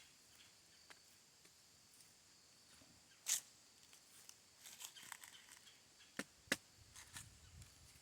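Footsteps crunching and rustling over brush and loose ground as a walker picks his way down a bank. There are scattered crunches and clicks, the loudest about three seconds in and two sharp ones close together a little after six seconds.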